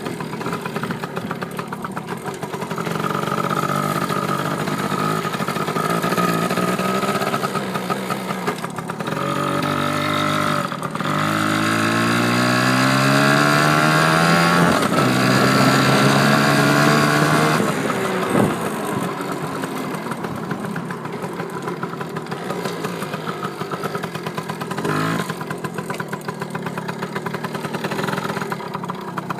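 Dirt bike engine running, then accelerating hard about a third of the way in, its pitch climbing twice with a gear change between, before easing back to a lower steady running note.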